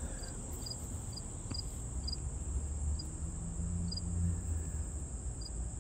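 Insects trilling steadily in a high, even drone, with short higher chirps repeating at uneven intervals. A low rumble swells in the middle.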